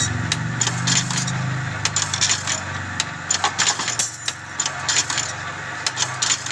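Automatic rebar stirrup-bending machine running, driven by a 1.5 hp single-phase electric motor. The motor hums steadily while the mechanism gives repeated sharp metallic clicks and clanks, two or three a second, as it works steel rod into stirrups. The hum is stronger in the first couple of seconds.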